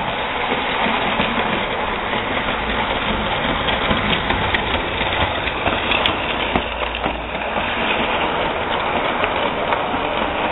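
HO scale Bachmann 4-8-4 steam locomotive and its cars running past close by on model track: a steady rattling whir of motor and wheels with scattered light clicks. A low hum is strongest a few seconds in, as the locomotive itself goes by.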